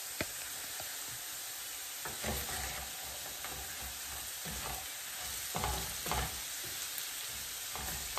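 Potatoes frying in a skillet with a steady sizzle, stirred a few times with a utensil scraping the pan, the potatoes nearly done.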